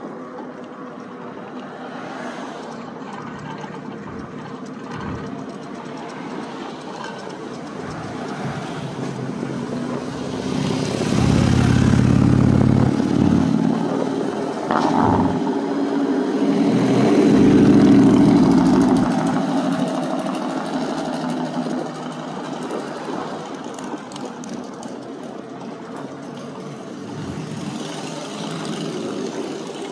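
Steady wind and road noise from riding an electric bike, with two loud swells of passing traffic near the middle.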